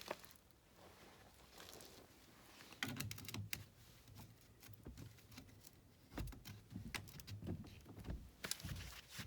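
Irregular light clicks and small metallic knocks of hand-tool work, tightening the clamp on a Fernco rubber pipe coupling; the clicks cluster about three seconds in and again through the last few seconds.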